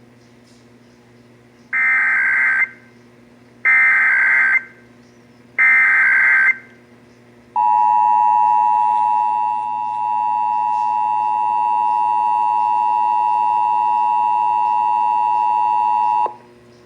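Emergency Alert System SAME header: three bursts of screeching digital data tones, each about a second long, then the EAS two-tone attention signal held steady for about nine seconds before it cuts off. This marks the start of an EAS alert, here a required monthly test.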